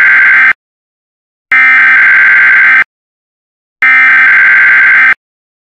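Emergency Alert System SAME header: harsh, buzzing digital data bursts, the header repeated three times. The first burst cuts off about half a second in, then two more full bursts follow, each about a second and a half long with a second of silence between. These are the coded alert tones that come before the EAS attention signal.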